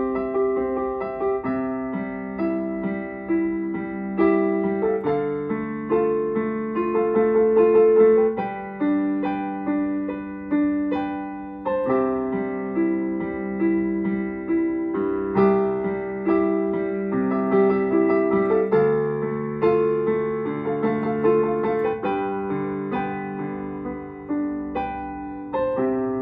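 Solo piano piece played with both hands, several notes sounding together and changing at a steady pace.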